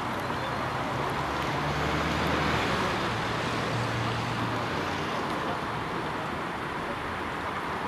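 Steady urban traffic noise, with a vehicle's engine hum coming up about a second in and dropping away after about four and a half seconds.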